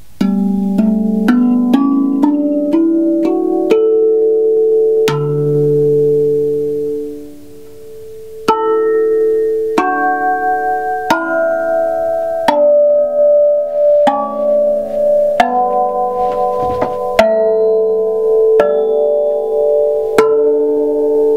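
Large steel tongue drum with butterfly-shaped tongues, played by hand: a quick rising run of about eight ringing notes, then a deep low note that rings out and dies away. After a short lull, slower struck notes follow, each ringing on over the next.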